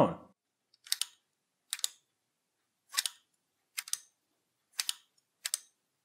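A push-push latch mechanism clicking as it is pressed: six sharp clicks about a second apart, most of them a quick double click.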